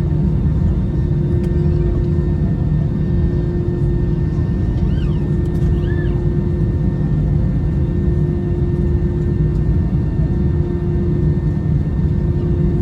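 Steady rumble of an Airbus A321-211 heard inside the passenger cabin: engine and airflow noise with a constant hum over it.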